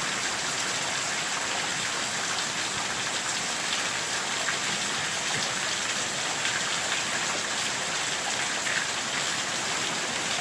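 Hail falling: a steady hiss of hailstones hitting the ground and surfaces, with scattered small ticks.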